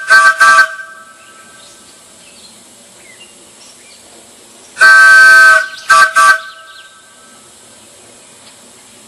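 Large wooden Ford chime train whistle blown at 40 psi, sounding a chord of several notes at once. Three short toots at the start, a longer blast of nearly a second past the middle, then two quick toots.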